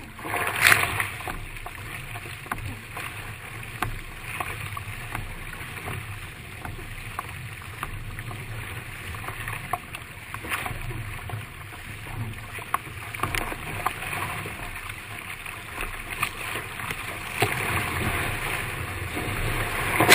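Water rushing and splashing around a doubles surfski hull as it runs through a rough, choppy sea, with paddle strokes and spray hitting the deck. There is a loud splash about half a second in and another near the end.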